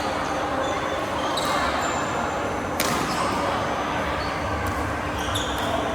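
Badminton rally on an indoor court: a racket strikes the shuttlecock with one sharp crack about three seconds in, amid short squeaks of shoes on the court floor and the hall's steady background noise.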